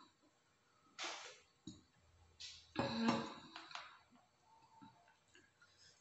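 Eating sounds from someone chewing rice and chicken satay: a few short bursts of chewing and lip-smacking, the loudest about three seconds in.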